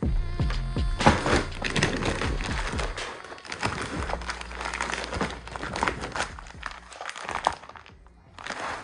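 Clear plastic film wrapping a bag of fireworks rockets crinkling as it is gripped and handled, in irregular crackles that die down briefly near the end.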